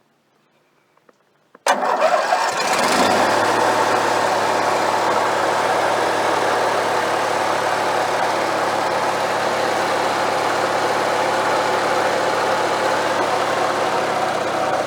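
Briggs & Stratton 18.5 hp opposed-twin engine fitted with a newly replaced ignition coil, firing up suddenly about two seconds in after a few faint clicks, then idling steadily. It starts and keeps running, the sign that the new coil is giving spark.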